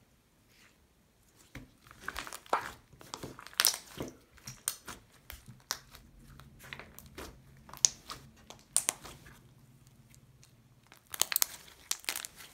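Putty-like fluffy slime being squished and worked in the hands, giving an irregular run of sharp clicks and small bubble pops from about one and a half seconds in, thickest near the end.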